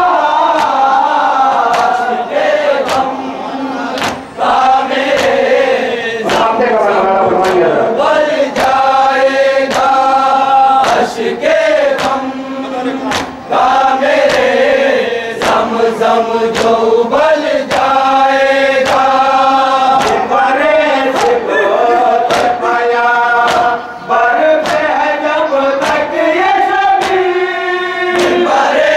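A group of men chanting an Urdu nauha (Shia lament) together, with regular sharp slaps of chest-beating (matam) keeping the beat.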